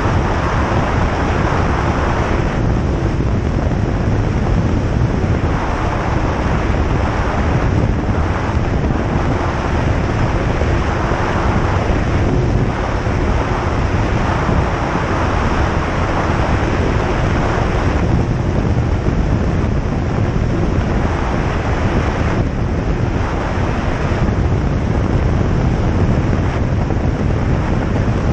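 Single-engine light aircraft's engine and propeller running steadily under a loud rush of air and wind noise, with a faint steady hum and the hiss swelling and easing every few seconds.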